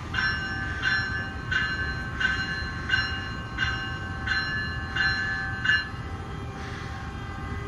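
Bell of an NJ Transit ALP-46A electric locomotive ringing about nine times, one strike every 0.7 s or so, then stopping about six seconds in. A steady electric hum and low rumble from the standing locomotive run underneath.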